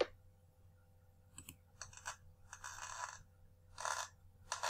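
Welding sound played back from a slide: faint, irregular bursts of crackling and hiss, a few short ones and one lasting most of a second. A single click comes at the very start.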